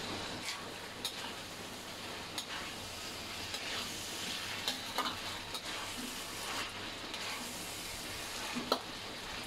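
Beef pieces, potato, onion and chillies in a dark soy sauce sizzling in a wok as a spatula stirs them, with scattered sharp clicks and scrapes of the spatula against the pan.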